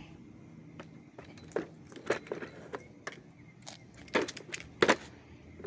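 Clicks and knocks of a part being fitted back onto a BLACK+DECKER 3-in-1 corded compact lawn mower: a handful of separate sharp clicks, the loudest two about four and five seconds in.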